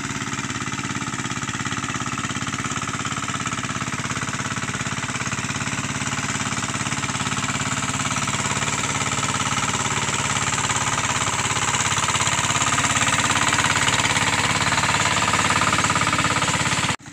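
Hand tractor engine running steadily under load as the machine tills a flooded rice paddy, a rapid chugging that grows louder as it comes closer.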